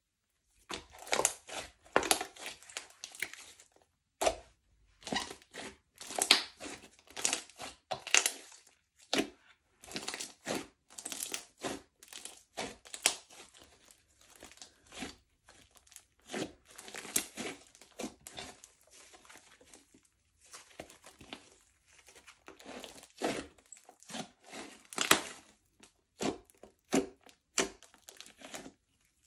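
Slime being kneaded, stretched and pressed by hand, giving irregular sticky crackles and pops in clusters with short pauses between them.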